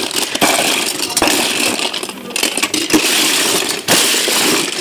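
Die-cast metal toy cars (Hot Wheels and Matchbox) clattering and clinking against one another as a hand rummages through a box full of them, a continuous jumble of sharp clicks and knocks.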